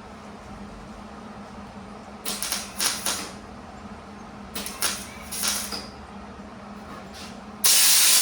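Welder tack-welding thin sheet-metal filler strips into a car door: two short crackling bursts about two seconds apart, each lasting about a second, over a steady low hum. Near the end comes a louder, steady hiss lasting about a second.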